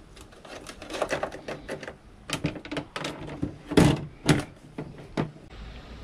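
Plastic dust filters being slid into a split air conditioner's indoor unit, a quick series of plastic clicks and knocks, the loudest a little under four seconds in.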